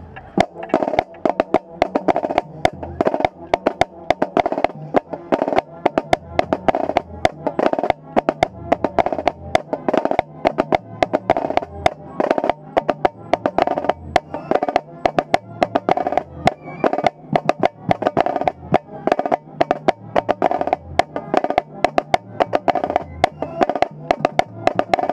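Marching snare drum played right at the microphone, a dense run of sharp, rapid stick strokes, over the marching band's horns playing sustained notes.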